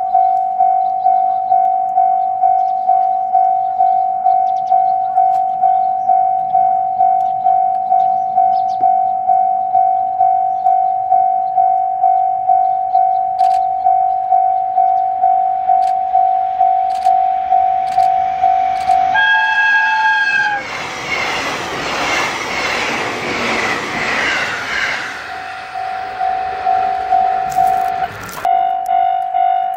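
A railway crossing bell rings steadily at one pitch, about two strokes a second. About two-thirds of the way in, an electric train sounds a short horn. It then passes close by with a rush of wheel and running noise for about five seconds, and afterwards the crossing bell is heard again.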